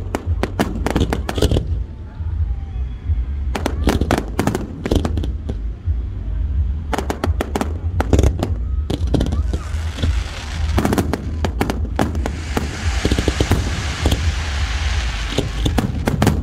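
Aerial fireworks display: rapid volleys of sharp bangs in clusters every few seconds. Through the middle, from about ten seconds in, there is a long dense crackling hiss as crackling stars burst.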